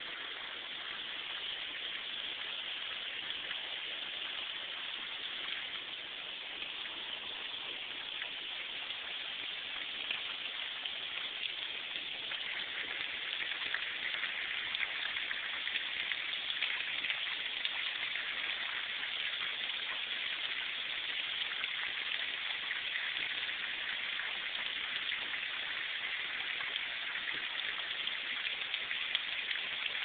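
Steady hiss of heavy rain, picked up on a cellphone microphone, with a few sharper drop ticks; it grows a little louder about twelve seconds in.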